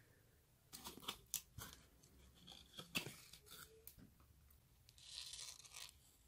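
Small cardboard box of live hornworms opened and handled: scattered sharp clicks and crackles of the card flaps, then a short rustle about five seconds in.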